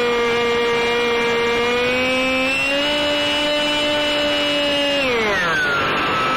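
Electric motor and propeller of a UM Stryker micro RC plane whining in flight over a steady hiss. The pitch holds steady, steps up a little about two and a half seconds in, then falls steeply near the end before starting to rise again.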